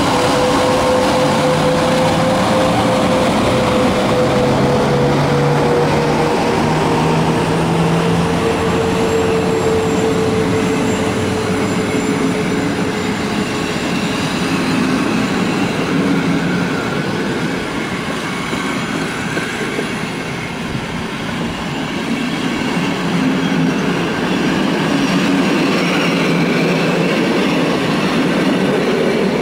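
An EP09 electric locomotive and its passenger coaches rolling past while departing. A humming tone from the passing train fades out about halfway, and the coaches' wheels run steadily on the rails.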